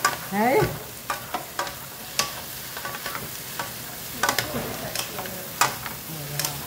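Vienna sausages, onion and bell peppers stir-fried in a nonstick wok, tossed with two wooden spatulas: a steady sizzle with irregular clacks and scrapes of the spatulas against the pan.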